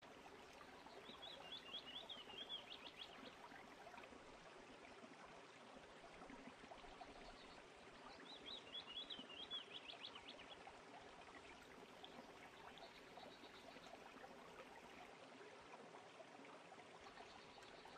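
Faint forest ambience. A bird sings a short run of quick high notes twice, about a second in and again about eight seconds in, over a steady low hiss.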